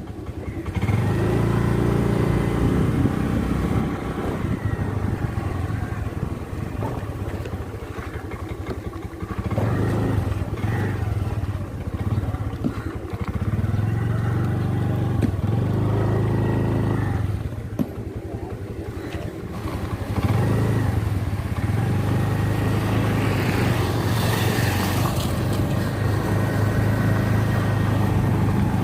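Motorcycle engine running while being ridden, its pitch rising and falling several times as it speeds up and eases off.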